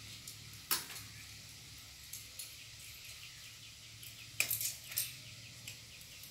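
Scissors snipping through bottle gourd stems and leaf stalks: one sharp snip just under a second in, then a quick run of several snips around four and a half seconds in.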